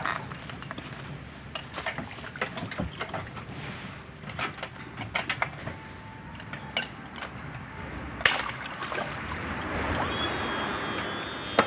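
Water sloshing around people wading, with scattered sharp metal clinks and knocks from hand work on an outboard motor's mounting bracket. About ten seconds in, a steady hum starts.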